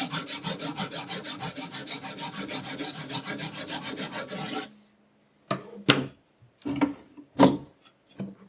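Sharpening stone scraped rapidly back and forth along a knife edge, about seven even strokes a second, stopping suddenly a little past halfway. After that come a few separate short sounds, two of them louder than the strokes.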